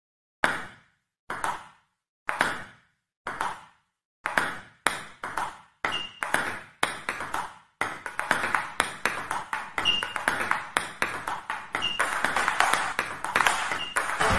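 Table tennis balls striking paddles and bouncing on the table. Single hits come about once a second at first, then quicken from about four seconds in, and from about eight seconds in many hits overlap as several rallies go at once.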